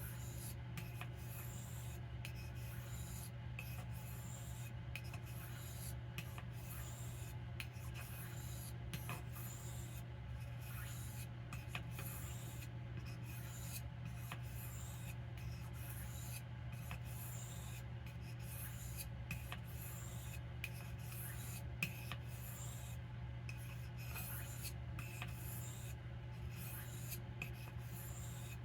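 Knife blade stroked again and again across a soft Arkansas whetstone, a dry rubbing hiss with short breaks between strokes. A steady low hum runs underneath.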